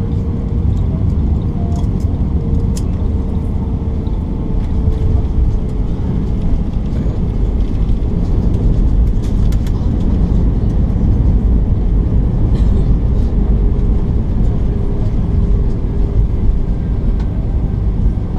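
Cabin noise of an Airbus A320-family airliner on its landing roll: a steady low rumble of wheels, airflow and engines, with a faint engine tone drifting slowly down. The rumble grows a little louder about five seconds in.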